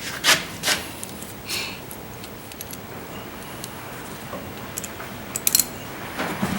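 A few light clicks and taps of metal hardware being handled, followed by a quick cluster of sharp ticks near the end.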